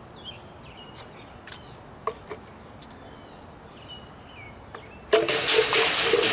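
Small birds chirping faintly, with a few light clicks. About five seconds in, a loud rushing noise starts suddenly and drowns them out.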